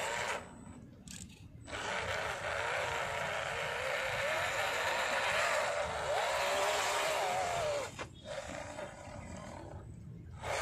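Electric motor and gear train of an MN99S 1:12 RC crawler whining under throttle, the pitch wavering up and down as it crawls, with gritty tyre noise on dirt underneath. After a short burst and a gap at the start it runs steadily, drops off sharply about eight seconds in, and runs quieter after that.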